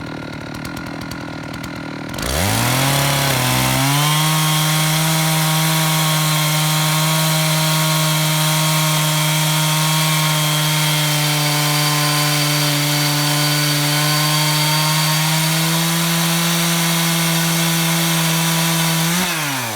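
Chainsaw in an Alaskan-style chainsaw mill, idling, then opened up to full throttle about two seconds in. It runs at a steady high pitch under load as it rips lengthwise along a pine log, then drops quickly back toward idle near the end as the cut reaches the end of the log.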